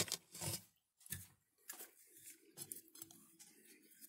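Faint, scattered clicks and brief rustles of hands handling an antique electric motor's wire leads and heat-shrink tubing, a slightly louder rustle about half a second in.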